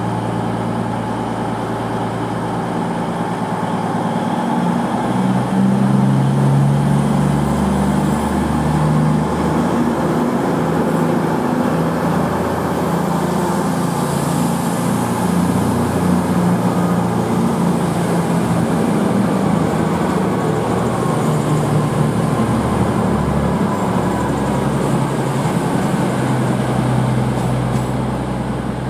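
CrossCountry Class 220 Voyager diesel multiple unit pulling away under power. Its underfloor diesel engines rise in pitch and loudness a few seconds in, then keep running loudly as the train moves off.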